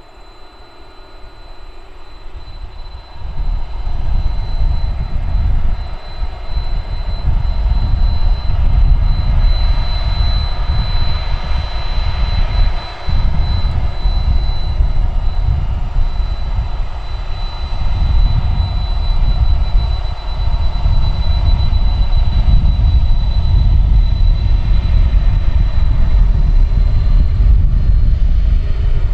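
Boeing 747 jet engines running as the airliner turns onto the runway: a steady high-pitched whine over a deep rumble that gets much louder about three seconds in.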